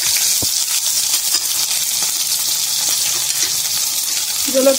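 Sliced onions sizzling as they fry in hot mustard oil in a metal kadai, a steady hiss, with two light clicks near the start.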